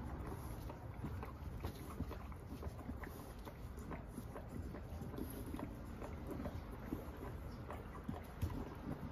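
Two-week-old chow chow puppies crawling on carpet: soft scuffling with faint, brief squeaks scattered throughout, over a steady low rumble.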